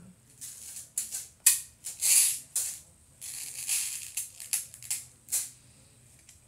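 Plastic pin-art fidget toy being handled, its many small plastic pins rattling and sliding in irregular clicks and short rustling bursts, with a longer rustle about halfway through.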